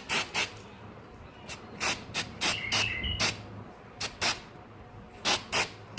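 Aerosol silicone spray hissing out in about a dozen short bursts, often in quick pairs, as it coats the feeder. A bird chirps faintly about three seconds in.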